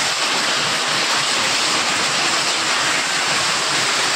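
Heavy rain mixed with hailstones pelting a concrete courtyard: a loud, steady downpour.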